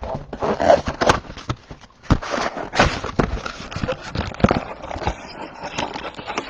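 A trading-card mega box being opened by hand: irregular crackling, tearing and tapping of cardboard and wrapped packs.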